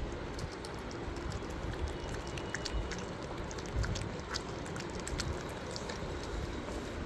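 Shih Tzu puppies licking and lapping syrup from an oral syringe: many small wet clicks scattered over a low rumble.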